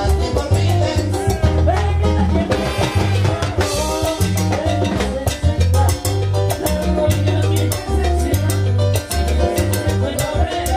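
A big band playing salsa, with a bass line and drum kit driving the beat.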